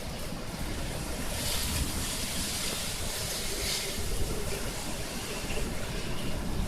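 Strong wind from an approaching typhoon rushing and buffeting the microphone with a low rumble. A louder hissing gust swells about a second and a half in and eases off after about four seconds.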